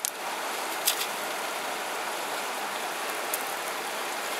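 Steady rush of river water, with a couple of light clicks from gravel shifting in a plastic scoop.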